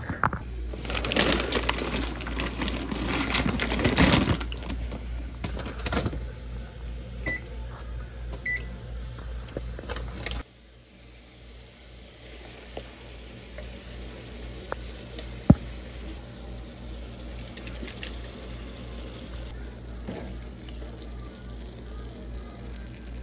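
Kitchen handling noises over a steady low hum: loud rustling and knocks for the first four seconds, then a few knocks and two faint beeps. From about ten seconds in, a quieter hum with a faint hiss and one sharp click is heard as crushed tomatoes go into a skillet of browned ground beef.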